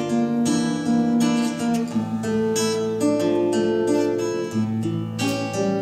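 Classical guitar strummed in an instrumental passage with no singing, the chord changing about two seconds in and again near the end.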